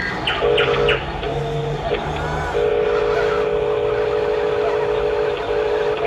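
Radio-controlled Huina wheel loader's small electric drive motor and plastic gearbox whining, first in two short spurts, then running steadily from about two and a half seconds in as the loader drives forward. Birds chirp over it.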